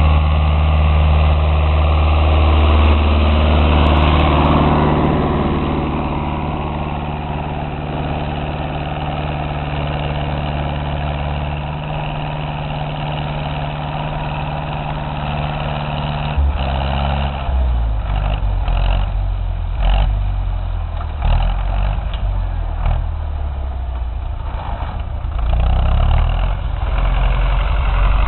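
Ursus C-360 tractor's four-cylinder diesel engine running steadily. Its note shifts partway through, and from about halfway in it is joined by irregular knocks and clatter.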